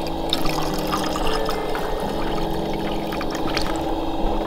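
Water pouring in a stream from a plastic water tank into a Snow Peak stainless steel mug.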